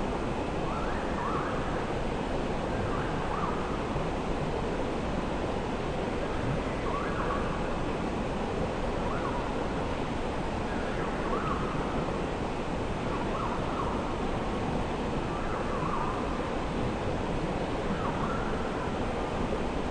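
Steady rush of flowing creek water, with short bird calls repeated every couple of seconds, often two in quick succession.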